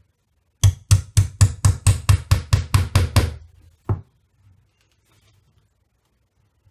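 Hammer tapping a small nail through a thin wooden strip into a wardrobe's side panel: a quick run of about a dozen taps, roughly four a second, then one last tap a moment later.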